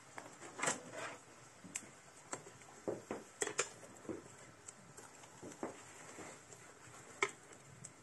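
A metal poker stirring burning logs in the firebox of a wood-fired masonry stove: scattered clinks, knocks and scrapes of metal against wood and the stove.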